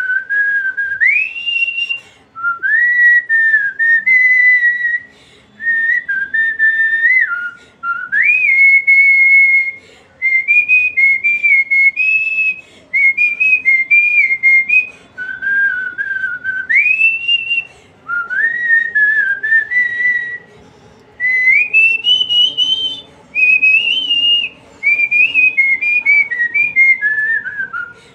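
A woman whistling a melody through pursed lips, a clear pure tone moving in phrases with quick upward slides into many notes and short breaks for breath between phrases.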